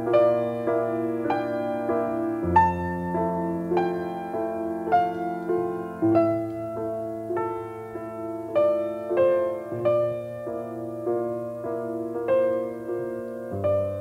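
Background piano music: a gentle, unhurried run of single notes over held low bass notes.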